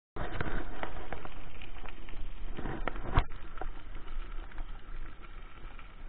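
Mountain bike rolling along a gravel road: tyres crunching on the gravel and the bike knocking and rattling over bumps. The rattling is loudest for the first three seconds, with one sharp knock about three seconds in, then settles lower.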